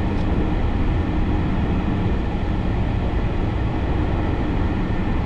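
Steady low rumble of a moving car, engine and tyre noise heard from inside the cabin while driving.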